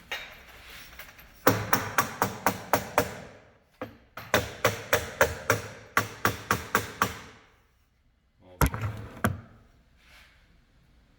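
Rapid sharp knocking, about five knocks a second in two runs of a few seconds each, then a few more knocks later: parts of a string trimmer being knocked on to work a broken drive shaft loose.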